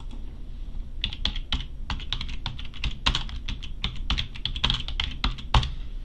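Typing on a computer keyboard: an irregular, quick run of keystrokes starting about a second in, with one heavier key hit near the end.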